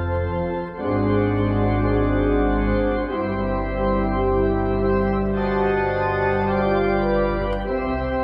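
Organ playing held full chords with deep pedal bass notes underneath, the harmony changing about every two to three seconds.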